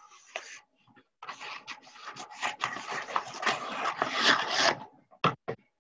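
Scissors cutting through wallpaper along a cardboard edge: a rough, continuous rasp with paper crackling for a few seconds, then two sharp clicks near the end.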